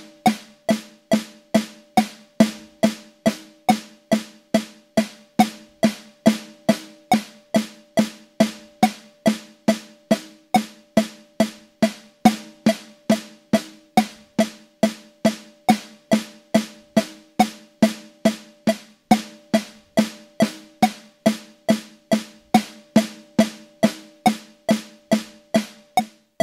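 Snare pad of an electronic drum kit struck in steady single strokes at 140 beats per minute, about two and a third hits a second, each hit the same. It is a wrist-and-finger stroke exercise, eight strokes per hand, going from up strokes to down strokes to tap strokes.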